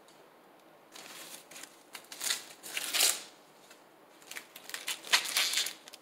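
Husk and silk being pulled and torn off an ear of fresh corn by hand, in several short tearing strokes that start about a second in.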